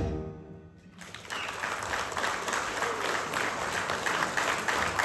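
A live band's last chord rings out and fades, then an audience applauds from about a second in.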